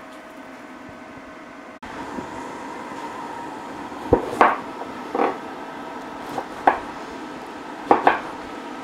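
Metal kitchen utensils clinking against pans and dishes: a string of sharp clinks, several in quick pairs, starting about four seconds in.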